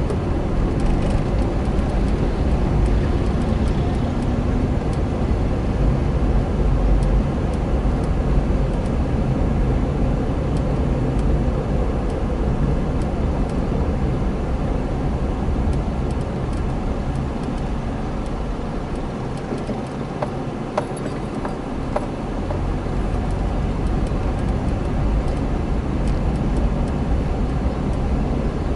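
A car driving, its engine and road noise heard from inside the cabin as a steady low rumble. The rumble eases for a couple of seconds past the middle, with a few light clicks, then picks up again.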